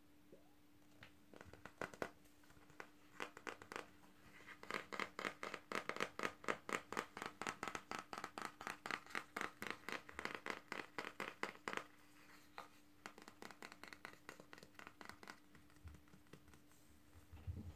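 Rhythmic scratching on a plastic paddle hairbrush, about three to four strokes a second. The strokes are loudest through the middle and softer and sparser near the end.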